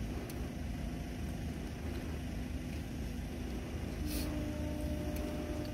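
Idling vehicle engine: a steady low rumble with a continuous hum, a second higher hum joining about four seconds in, and a brief hiss at the same moment.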